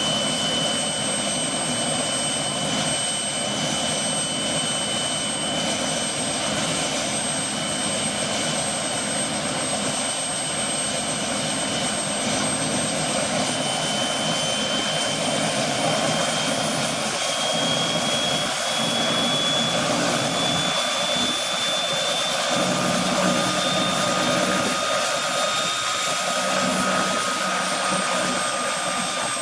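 Bell 206 JetRanger's Allison 250 turboshaft running with a high turbine whine over the rotor. About halfway through, the whine rises slowly in pitch and a lower tone joins it, as the engine and rotor spool up during start-up.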